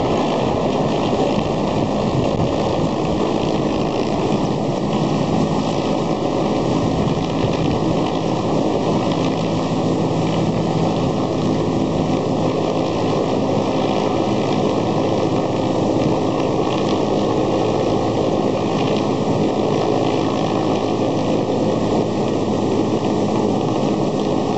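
Large transport helicopter hovering overhead: steady rotor and turbine noise at a constant level.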